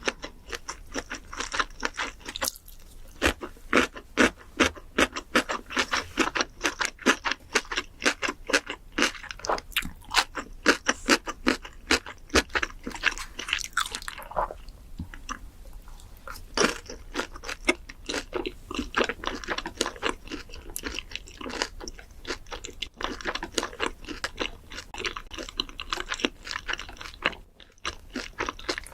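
A person chewing crisp, crunchy food close to the microphone: rapid, irregular crunches and crackles, pausing briefly a few times between mouthfuls.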